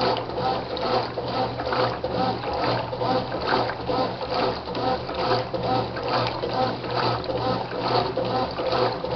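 Brastemp washing machine agitating a full tub of water: rhythmic back-and-forth swishing and sloshing, about twice a second, over a steady motor hum.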